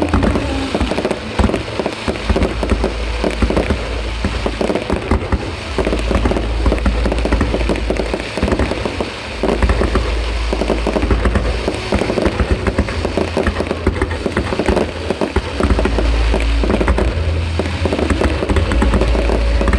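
Fireworks display: many bangs and crackles going off in quick succession with no break.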